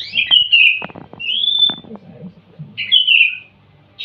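Caged songbirds kept indoors chirping in short high phrases, three bursts about a second apart, the middle one a rising then falling call. A few sharp clicks sound among the first two phrases, over a faint steady low hum.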